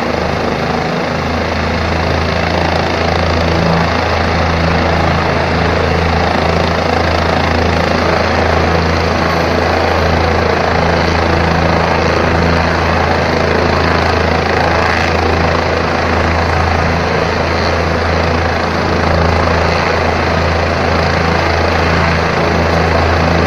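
Helicopter's turbine engine and main rotor running loud and steady at high power as it lifts off, with a deep low hum that firms up about a second in.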